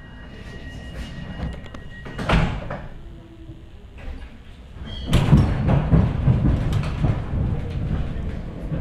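Sliding doors of an ER2T electric train car, one banging shut about two seconds in. From about five seconds in a louder rattling rumble sets in as the train starts off.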